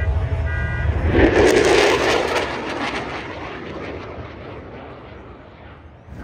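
Fighter jet flying past low, its engine noise loudest between about one and two seconds in. It then fades steadily as the jet flies away, turning duller as the high end drops out.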